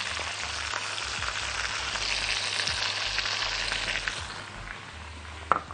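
Butter sizzling and crackling in a metal pan around a browned whole chicken with onion and garlic, easing slightly near the end. A short sharp knock comes just before the end.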